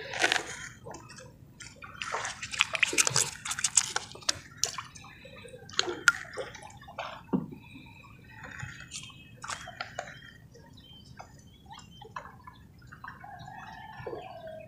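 Shallow lake water sloshing and splashing in irregular bursts, loudest about two to four seconds in.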